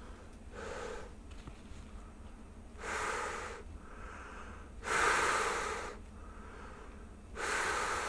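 A person breathing heavily through a Prescient X NanoMask elastomeric respirator while cupping both hands around the mask's edges in a face-seal check. Four breaths come about two seconds apart, the loudest about five seconds in.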